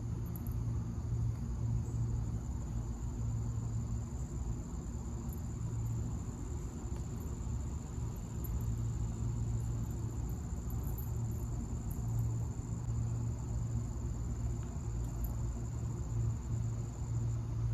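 Steady low electrical or mechanical hum with a thin, steady high-pitched whine over it.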